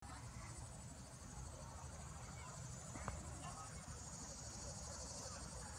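Faint, steady chorus of insects, an even high-pitched buzz, over a low rumble, with one sharp click about three seconds in.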